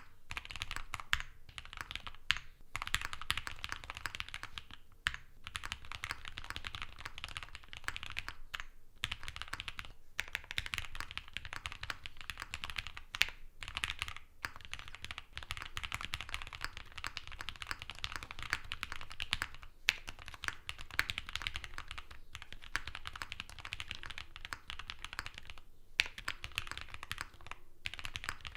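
Matrix Lab ME SE mechanical keyboard with lubed Gateron Yellow Pro linear switches, aluminium plate, full foams and GMK keycaps, typed on quickly and continuously. The keystrokes are broken by a few short pauses.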